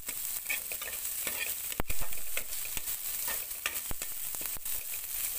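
Chopped onion, garlic and ginger sizzling in hot mustard oil in a steel pan while being stirred, the spatula scraping and clicking against the pan: the tadka being browned. One sharp, louder clack about two seconds in.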